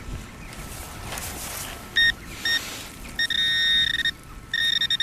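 Metal detector beeping over a buried target that is reckoned to be a coin: two short beeps about two seconds in, then a longer steady tone, then another near the end, all at one pitch. Soft rustling comes before the beeps.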